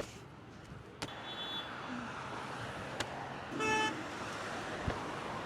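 A passing car's horn gives one short honk about three and a half seconds in, over the steady noise of passing traffic. A few sharp knocks come before it.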